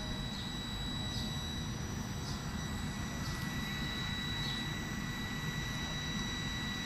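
A passenger train of UIC-X coaches standing at a platform: a steady low rumble with a steady high-pitched whine over it, and faint high chirps recurring about once a second.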